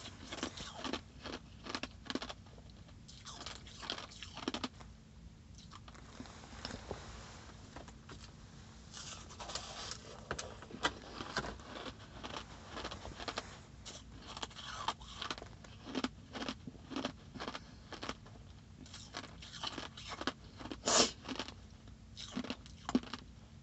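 Finely crushed ice being bitten and chewed close to the microphone: a run of quick, crisp crunches, thinning out for a few seconds early on, with one loud crunch near the end.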